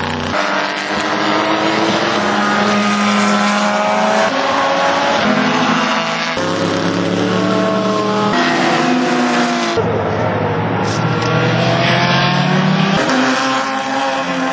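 Racing car engines at high revs passing by, their pitch rising and falling through gear changes and as the cars go past. The sound changes abruptly a few times as one passing car gives way to another.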